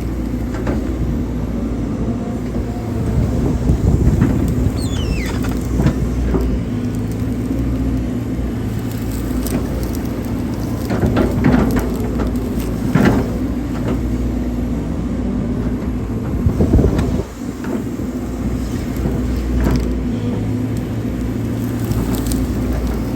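Hydraulic excavator engine running steadily under load while digging, with scattered knocks and scrapes of the bucket in soil and a brief squeal about five seconds in.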